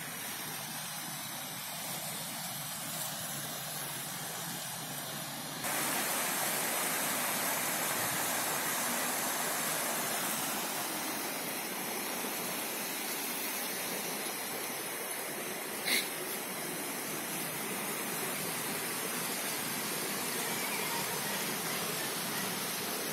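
Stream water rushing over a rocky bed, a steady hiss that grows louder about six seconds in, with one sharp click about sixteen seconds in.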